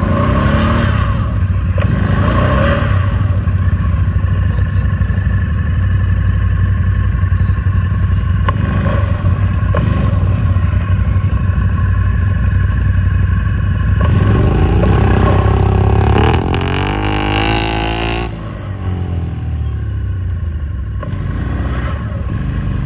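ATV engine running hard under load as the quad's wheels churn through deep snow. The revs climb sharply about two-thirds of the way through, then drop back.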